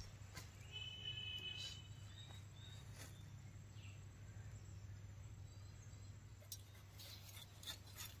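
Quiet outdoor ambience with a faint steady low hum. A short, high, steady bird call comes about a second in, and a few light clicks sound near the end.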